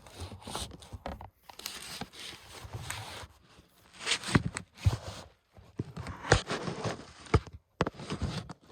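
Packing material being pulled and torn away from a boxed fan: irregular bouts of crinkling and tearing, with several sharp knocks.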